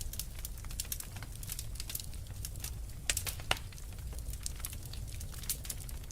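Wood fire in a fireplace crackling, with many small irregular pops over a low steady rumble of the flames and two louder snaps about three seconds in.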